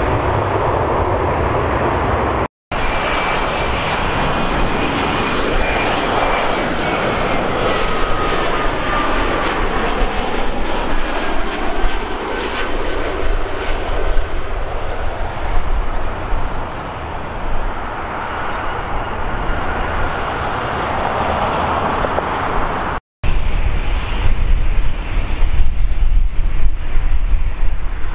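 Jet airliner engines passing close by: a loud roar with a turbine whine that glides down in pitch as the aircraft goes past. The sound cuts out abruptly twice at edits, and after the second cut a deeper, uneven rumble takes over.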